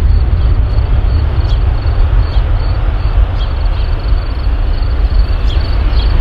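Aircraft engines making a loud, steady deep rumble, with a faint high chirp repeating about once a second above it.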